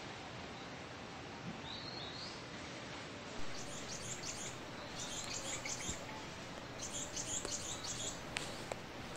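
Small birds chirping in short, rapid clusters of high notes over a steady hiss of outdoor background noise.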